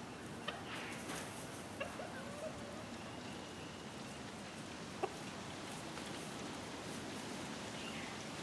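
Chickens clucking faintly: a few short, sharp calls, the sharpest about five seconds in, over a steady low hiss.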